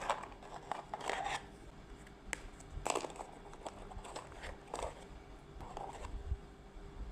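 Trading cards and their packs being handled: faint scattered rustles and light clicks, the louder ones about a second in and near the three-second mark.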